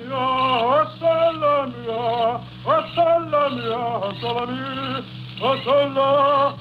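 A man, the barber, singing a song in long, wavering held notes, with a steady low hum underneath from the old radio recording.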